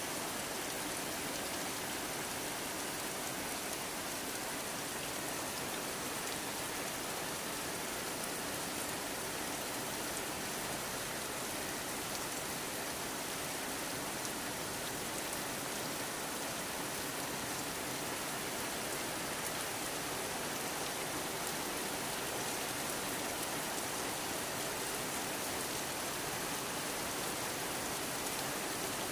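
Steady rain falling, an even hiss of many drops with a fine patter.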